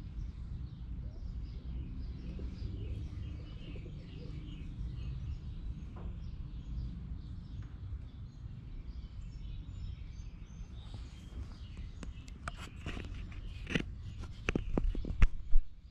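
Steady low background rumble with faint bird chirps, then a cluster of sharp clicks and knocks in the last few seconds.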